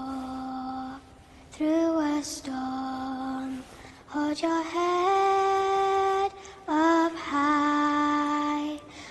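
Soundtrack music: a slow, lullaby-like solo female voice singing long held notes in short phrases, with brief pauses between them.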